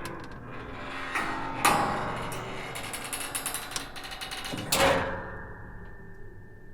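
Old wooden attic door creaking on its hinges: a long stuttering creak of rapid fine clicks, with a sharp knock as it starts and another as it stops. A faint steady high tone hangs on after the last knock.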